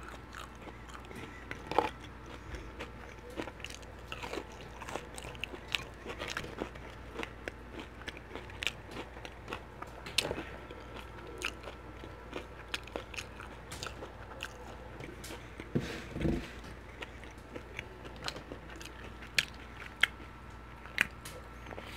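Close-miked chewing and crunching of crisp fried halibut in a Flamin' Hot Cheetos crust, with many short, sharp, irregular crunches and mouth clicks.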